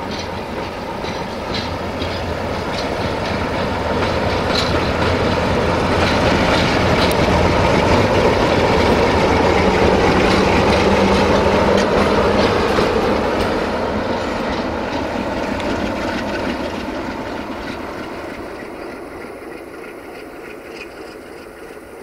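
Electroputere ND2 (060-DA) diesel-electric locomotive with a Sulzer engine running light past. The engine sound and the clack of its wheels over the rail joints grow louder to a peak about ten seconds in, then fade as the locomotive moves away.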